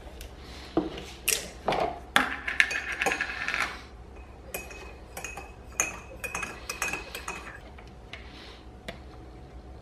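Metal teaspoon clinking and scraping against a ceramic mug while stirring tea, with a faint ringing note hanging after some of the strikes. Light knocks of a cup and a plastic tub being set down on a stone counter mix in, thinning out after about four seconds.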